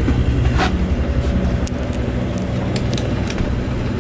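Amel Super Maramu 2000 yacht's inboard engine running under way, a steady low drone heard inside the cabin, with scattered light clicks and clinks from the galley.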